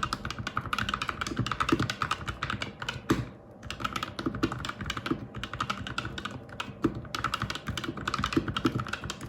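Typing on an A4tech Bloody B820R mechanical keyboard with linear red switches, lubed and fitted with switch films: quick, steady key strokes with a short pause about three seconds in.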